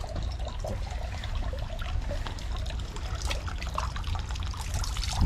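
Water trickling steadily from the spout into a stone shrine purification basin, with small splashes as water is poured from a metal ladle over hands.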